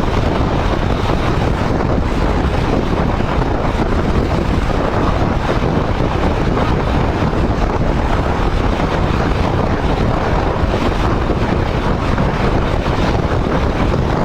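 Steady wind noise buffeting the microphone of a motorcycle moving at speed, over a low riding rumble.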